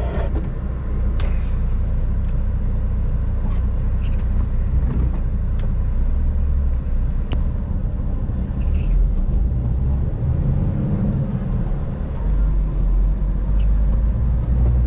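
Semi-truck heard from inside the cab: a steady low engine and road rumble, with a few sharp clicks scattered through.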